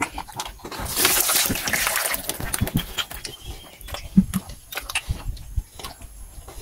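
Pigs eating wet slop from a trough, with many small chomping and slurping clicks. A louder rushing, splashing noise comes about a second in, and two short grunts about four seconds in.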